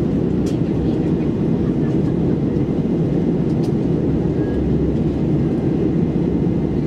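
Steady low rumble of engine and airflow noise inside the cabin of an Airbus A321-200 in flight, with a couple of faint clicks.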